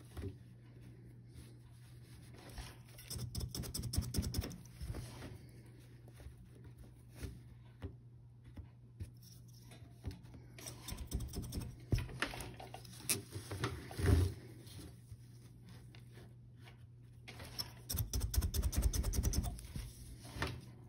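Quiet handling sounds of tapestry weaving on a frame loom: wool weft yarn rustling as it is drawn through the warp threads, and a wooden tapestry beater tapping the weft down in quick runs of small taps a few seconds in and again near the end.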